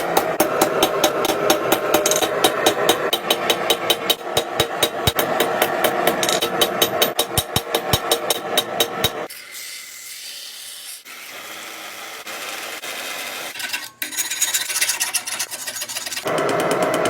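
Rapid, evenly spaced hammer blows on steel, several a second, while forging a kunai blade. They stop for several seconds of quieter, steady hiss broken by one sharp click, then start again near the end.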